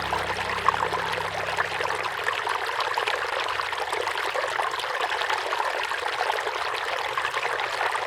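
Steady rush of a mountain stream flowing and splashing over rocks.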